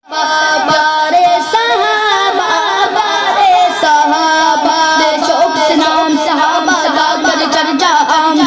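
A young boy singing a naat into a microphone, unaccompanied: a high child's voice in long, wavering melodic lines. It starts abruptly at the beginning.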